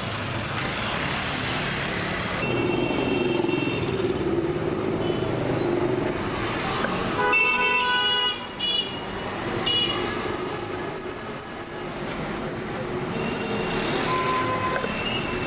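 Busy city street traffic, with motor scooters, cars and bicycles passing and horns tooting several times; the longest toot comes about halfway through.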